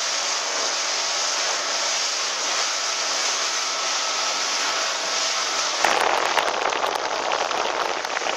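Small motorboat running fast over choppy water: a steady rush of wind and water along the hull over a low motor hum. About six seconds in, a louder crackling burst of splashing spray lasts a couple of seconds.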